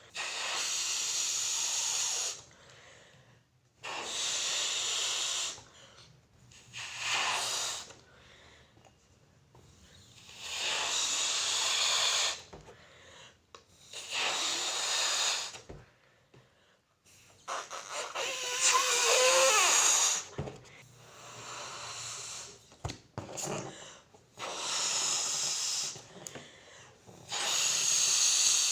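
A balloon being blown up by mouth: about nine breathy puffs of air into it, each a second or two long with short pauses between. One puff near the middle carries a wavering squeak.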